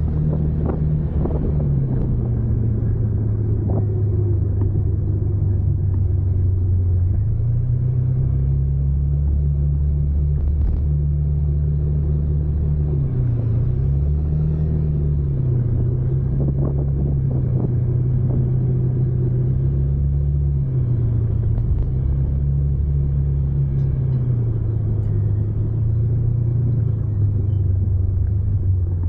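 A vehicle engine running on the road, its low drone rising and falling in pitch several times as the engine speeds up and slows.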